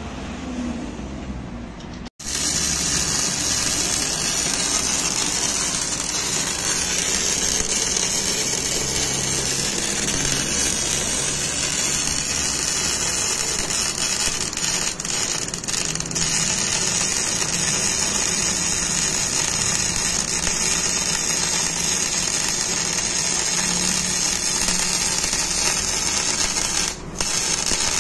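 MIG welder arc running steadily as it welds steel on the underside of a pickup truck's rusted frame, starting suddenly about two seconds in, with a brief break near the end.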